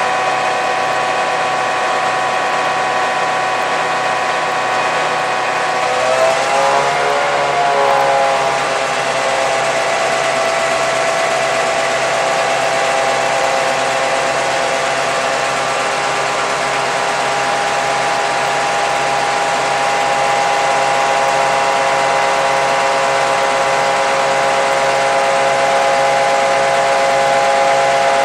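The 16-cylinder EMD 567 two-stroke diesel engine of a Nohab M61 locomotive running under load, heard close up inside its engine room. Its steady note wavers and shifts as the engine speed changes about six to eight seconds in, then holds steady and grows slightly louder near the end.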